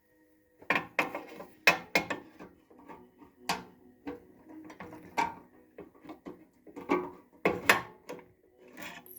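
Irregular metallic clicks and knocks of a hand wrench loosening the clamp on a snowblower's rubber fuel line.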